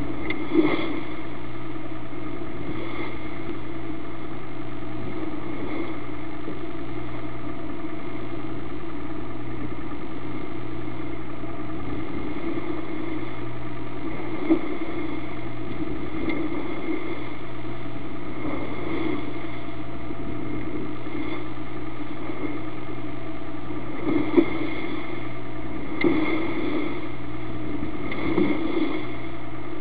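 A motor yacht's engine running steadily under way, with occasional short thumps as the bow meets the waves.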